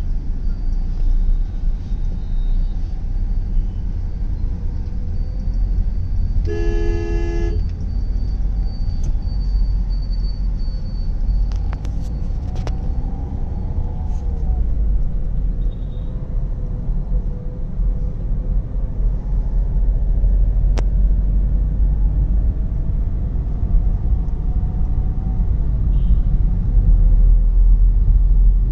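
Steady low rumble of road and engine noise inside a car moving through city traffic. A vehicle horn honks once for about a second, around six seconds in.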